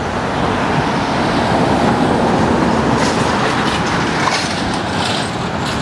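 Road traffic on a busy street: a steady, loud rumble and hiss of vehicles, with a few faint clicks in the second half.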